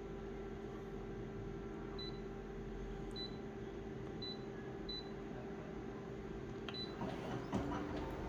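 Short high electronic beeps, about five of them a second or so apart, over a steady hum. A few clicks and handling noise come near the end.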